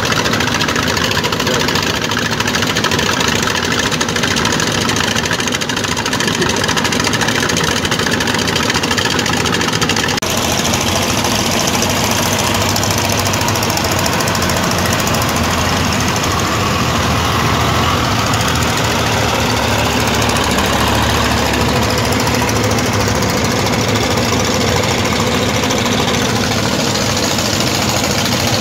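Diesel engines of sand dump trucks running and idling steadily. The sound changes abruptly about a third of the way in, and past the middle a deeper engine note swells for a couple of seconds.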